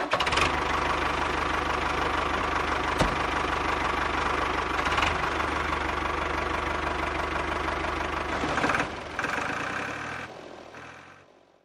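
Tractor engine running steadily, then fading out over the last couple of seconds.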